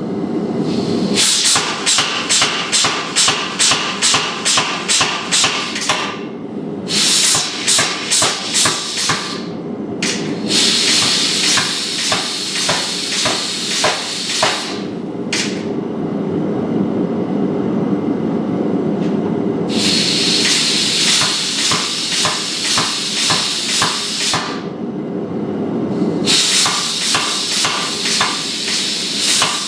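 Hammer blows on steel at the anvil, coming in quick runs of about four strikes a second, broken by stretches of several seconds of steady hissing.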